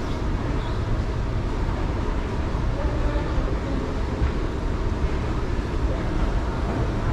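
Moving walkway running with a steady low rumble.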